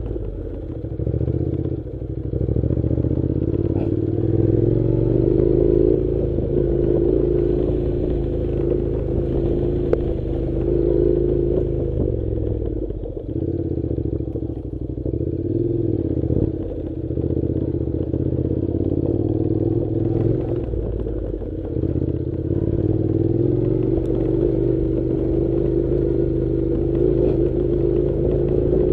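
Honda NC700 motorcycle's parallel-twin engine running on a dirt track, its pitch rising and falling with the throttle, with a few knocks and clatter from the rough ground.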